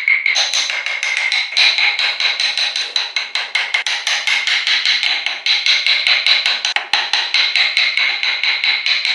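Rapid, even hammer taps, about five a second, each with a short metallic ring, as a hammer works on a carving tool or workpiece.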